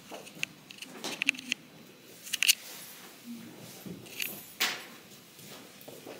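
Faint scattered clicks and light taps of small items being handled and set down on a tabletop.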